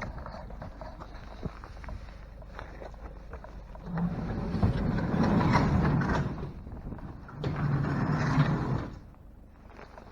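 Two long, rough bleats from farm animals: the first about four seconds in, lasting over two seconds, and a shorter one near the end. Faint scattered knocks and rustling come before them.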